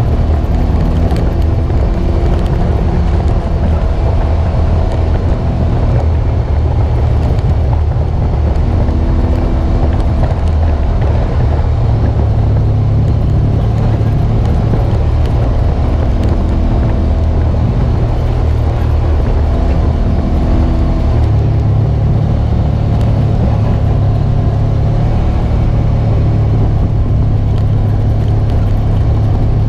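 Polaris RZR 900 Trail side-by-side's parallel-twin engine running under way on a gravel trail. Its pitch rises and falls a few times and steps up about two-thirds of the way through.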